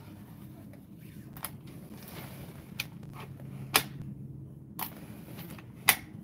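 A handful of short sharp clicks at irregular intervals, two of them louder, over a steady low hum.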